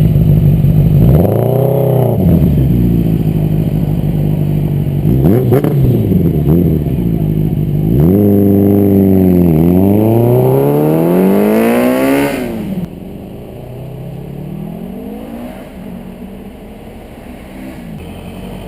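Honda Nighthawk 550 inline-four running through a MAC 4-into-2 exhaust with freshly overhauled carburettors, idling and blipped a few times, then revved in a long pull that climbs twice to a high pitch before falling off. After that it runs much quieter, with smaller rises in revs.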